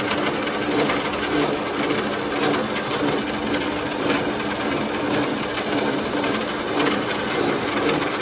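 Metal-turning lathe running steadily, a constant motor hum under an even whirring noise.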